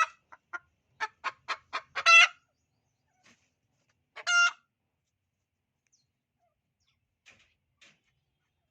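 Domestic hen's laying call: five quick clucks running into a loud drawn-out squawk about two seconds in, then a second long squawk about four seconds in; the cackle a hen makes around laying an egg.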